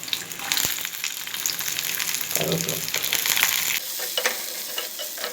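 Onion and whole spices sizzling and crackling in hot oil in a pan while being stirred with a spoon, with curry leaves tipped in partway through.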